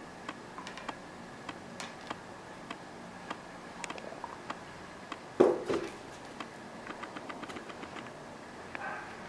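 A cat moving on a corrugated-cardboard scratcher: scattered light clicks and taps, a quick run of ticks near the end, and one louder thump about five and a half seconds in.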